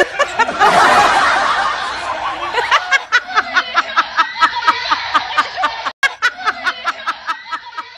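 Laughter: a dense stretch of laughing at first, then an even, rapid 'ha-ha-ha' of about four laughs a second.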